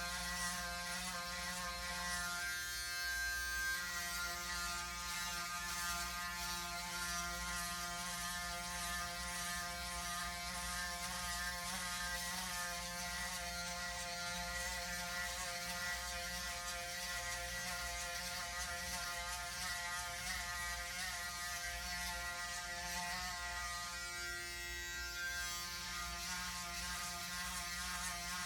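Braun Series 9 Pro 9465cc electric foil shaver running with a steady buzz as it is worked over the scalp in a head shave. It runs on a newly replaced motor, circuit board and battery, and keeps going without cutting out.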